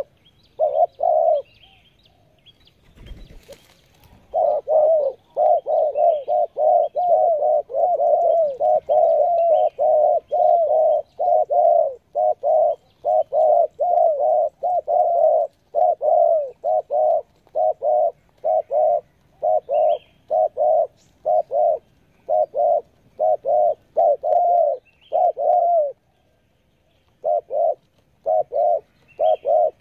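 Decoy spotted dove (tekukur) giving its fast 'speed'-type song: a long, rapid series of short coos, about two to three a second. The series breaks off briefly near the start, where there is a low bump about three seconds in, and again shortly before the end.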